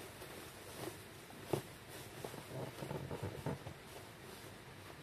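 Kittens shifting about on cardboard boxes: faint scrabbling and rustling of paws and claws on cardboard and tissue paper. There is a light tap about a second and a half in and a cluster of small scratches and knocks around three seconds in.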